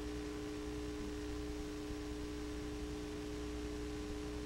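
Faint steady electrical hum of two low tones held without change, over light hiss, on a silent stretch of the broadcast soundtrack.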